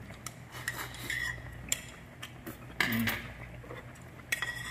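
Metal spoon and chopsticks clinking against a small bowl of noodle soup while eating: a handful of separate light clinks, with a short mouth sound from eating about three seconds in.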